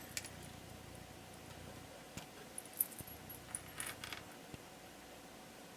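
Light clicks and taps of unfinished wooden organizer pieces being handled and fitted together, a few scattered knocks with a short clatter of small clicks about four seconds in.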